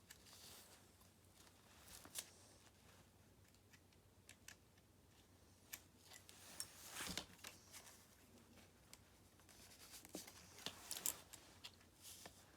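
Near silence with faint scattered clicks and rustles of small RC car parts and a tool being handled, busiest about seven seconds in and again around ten to eleven seconds.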